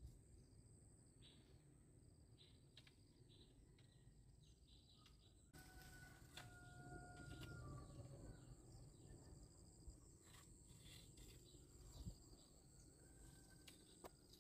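Near silence: faint outdoor ambience with a steady high insect drone and scattered short bird chirps, and a brief whistled call about six seconds in.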